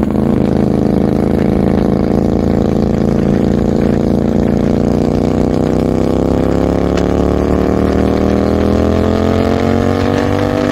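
Hyosung GT250R's 250 cc V-twin engine running through a freshly fitted Mark Performance titanium racing exhaust. The engine note rises slowly and steadily in pitch as the revs climb.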